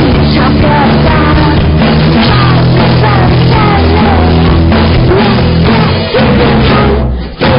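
Loud rock-style runway music with a heavy beat, steady bass and a singing voice; it dips briefly near the end.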